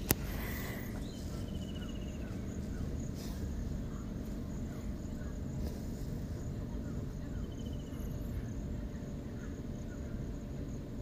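Steady low rumble of road and engine noise inside the cabin of a Tata Altroz hatchback driving along, with a single sharp click right at the start. A few faint chirping trills come from outside, around a second in and again after about seven seconds.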